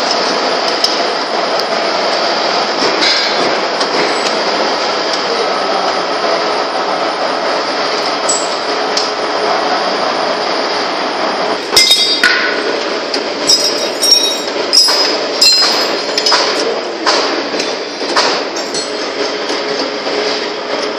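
Steady workshop background noise, then from about twelve seconds in, irregular sharp metallic clinks and knocks of a steel wrench and parts striking the machine's steel frame as a pillow-block bearing is bolted on.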